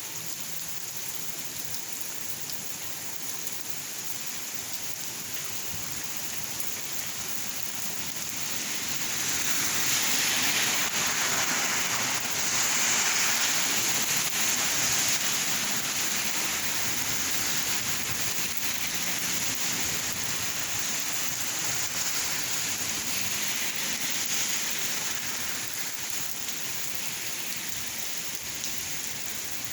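Steady rain falling, growing heavier about a third of the way in and easing off again near the end.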